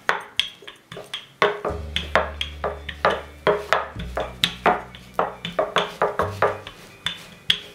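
Background music with a steady percussive beat over held bass notes.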